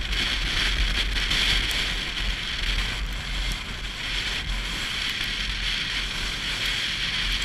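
Steady wind rush over the microphone with a low rumble underneath, the sound of riding on a moving motorcycle.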